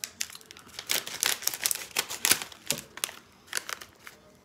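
Crinkly snack bag of rice cakes rustling and crackling in irregular sharp crinkles as a hand reaches in for a rice cake, thinning out near the end.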